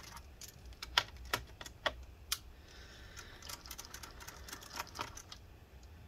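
Irregular light clicks and taps of a precision screwdriver working small screws out of a laptop's plastic bottom case, with a faint scraping about halfway through.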